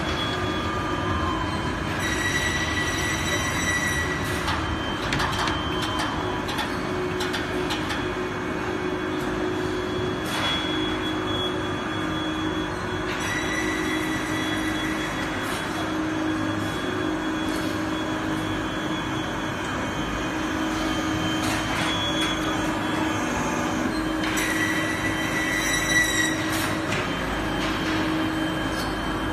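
Factory machinery of an MgO board production line running: a steady mechanical hum and rumble with a high whine that comes and goes a few times, and a few faint clicks.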